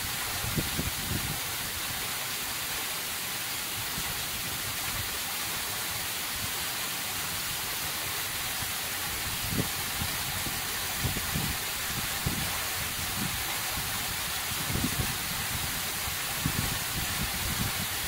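Waterfall pouring down a steep andesite rock face and splashing into a pool, heard close up as a steady hiss of falling water and spray, with irregular low thumps here and there.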